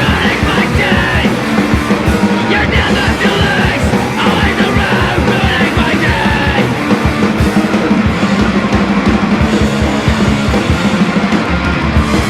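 Hardcore punk band recording: fast drums, electric guitar and bass with vocals. The vocals stop about halfway through and the band plays on.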